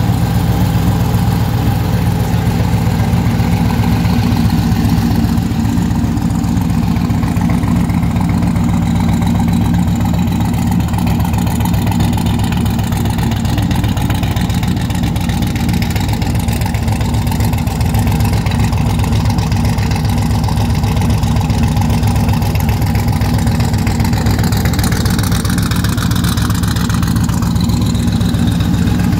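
Twin-turbocharged LSX V8 in a 1972 Camaro idling steadily.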